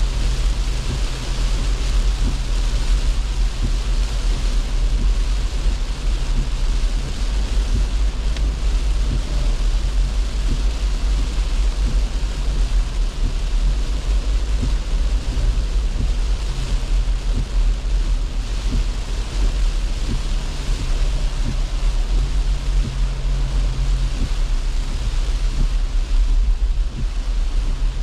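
A car driving on a wet road in the rain, heard from inside the cabin: a steady low drone of engine and road noise, with a hiss of wet tyres and rain over it.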